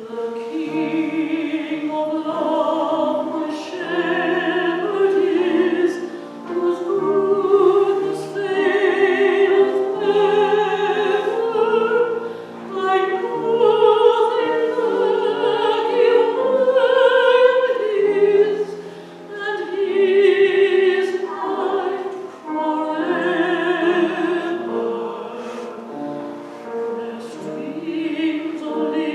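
A woman singing a slow solo hymn in a classical style, with vibrato on long held notes, over piano accompaniment. Her voice comes in at the start after a piano introduction, and the phrases are separated by short breaths.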